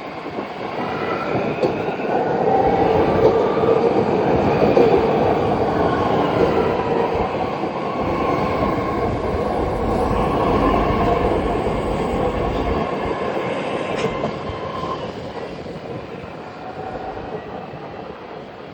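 BART train running on the rails: a rumble of wheels under an electric whine. The sound swells over the first few seconds and fades away near the end.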